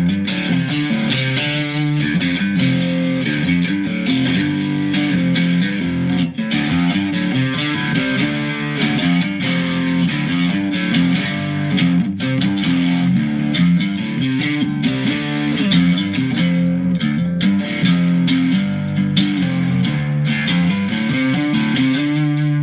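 Mexican-made Fender Stratocaster electric guitar tuned to drop D, played continuously as a riff of quickly changing low notes.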